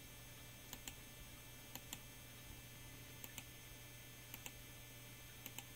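Near silence over a steady low hum, with faint pairs of short clicks roughly once a second.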